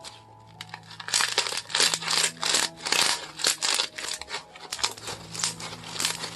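Homemade slime squeezed and worked by hand, giving a dense run of crinkling, crackling pops that starts about a second in.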